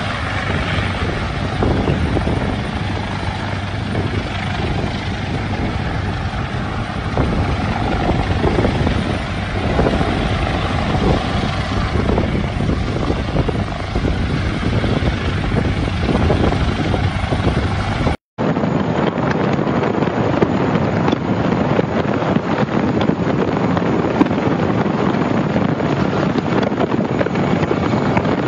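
Military helicopter hovering overhead, its rotor beating steadily, with some wind on the microphone. About 18 seconds in it cuts to a steady rush of rotor and wind heard from the open door of a helicopter in flight.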